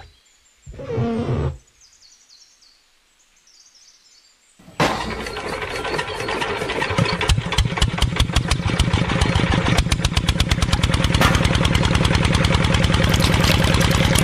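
Small diesel engine starting suddenly about five seconds in and running with a rapid, even beat that grows louder over the next few seconds, driving a belt-driven water pump. A short burst of sound comes about a second in.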